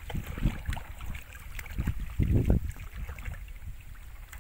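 Water splashing and sloshing as a pole is jabbed down into shallow water beside a wooden boat, with a run of irregular dull thuds, the heaviest about two seconds in.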